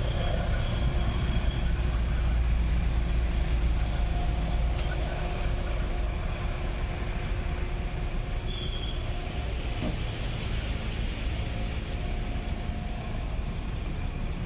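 Passenger train running away around a curve: a steady low rumble that eases slightly toward the end, with a few faint thin tones above it.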